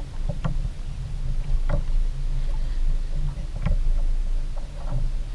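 Steady low rumble of water and wind around a plastic fishing kayak, with a few short, sharp knocks scattered through it as a hooked trout is fought on a spinning rod.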